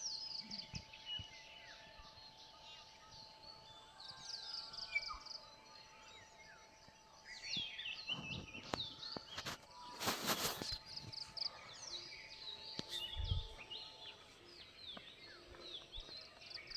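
Small birds chirping and trilling, with quick runs of repeated high notes and short sliding calls. A brief burst of noise breaks in about ten seconds in.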